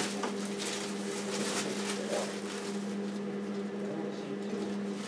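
Thin plastic packaging rustling and crinkling as it is handled and pulled off a new toaster, busiest in the first couple of seconds, over a steady low hum.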